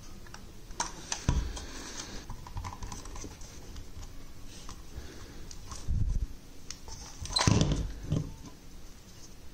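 Hands working on a plastic toy train locomotive: a screwdriver takes out its screws and the chassis is pulled from the body, giving scattered plastic clicks and knocks. The loudest clatter comes about seven and a half seconds in.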